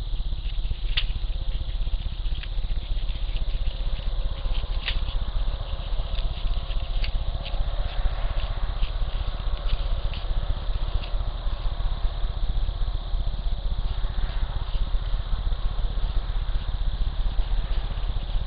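Steady low electrical hum from a Bushnell trail camera's own recording, with scattered sharp ticks during the first half.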